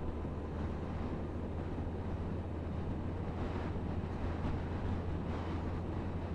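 Suzuki GSF1250 Bandit's inline-four engine running steadily while riding, under wind rush on the microphone.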